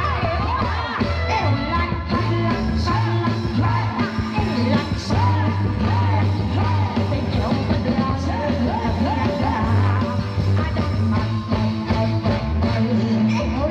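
A rock-style song with a singing voice and a strong, heavy bass line.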